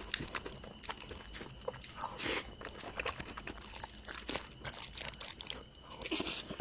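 Close-miked mukbang eating sounds: a man chewing and smacking on a big mouthful of cheesy cream pasta and Spam, heard as a run of many short, wet clicks.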